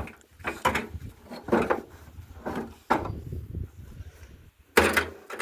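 Split firewood logs knocking against each other as they are set onto a bonfire stack: several separate wooden knocks, the loudest near the end.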